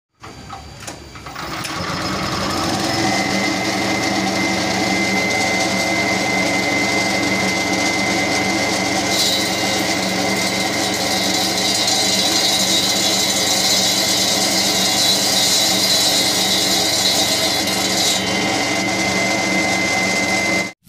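Walk-behind concrete saw driven by a WEMA WM270 single-cylinder petrol engine, throttled up over the first two seconds to a steady high-speed run with a thin steady whine above it. Through the middle a harsher grinding hiss joins as the diamond blade cuts into concrete paving blocks. The sound cuts off suddenly at the end.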